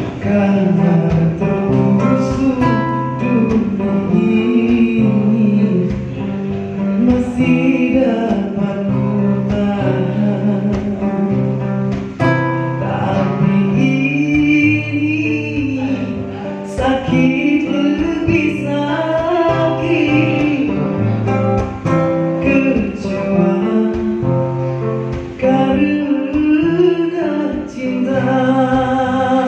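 A man singing a slow song over an acoustic guitar, its strings plucked and strummed as accompaniment.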